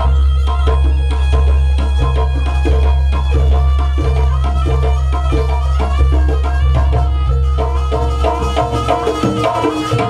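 Traditional Javanese Jaranan music: drum strokes beat under a stepping melodic line. A deep steady hum sounds underneath and drops away near the end.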